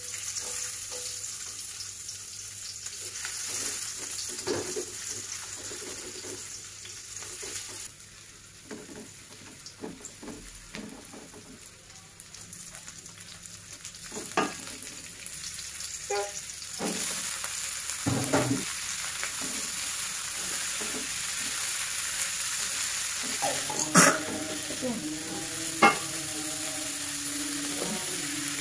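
Chopped shallots, garlic and chillies frying in oil in an aluminium wok, a steady sizzle, while a spatula scrapes and stirs them. Green beans are then tossed in, with a few sharp knocks against the wok, the loudest one late on.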